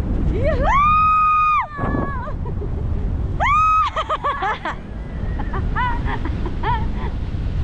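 A person screams twice in long, high-pitched screams, the first over a second long and the second shorter, then gives a few short cries, over a steady low rumble.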